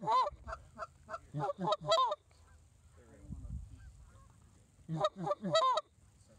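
Canada goose honks and clucks blown on handheld goose calls, loud and close. A quick run of about eight calls fills the first two seconds, and a faster burst of five comes about five seconds in.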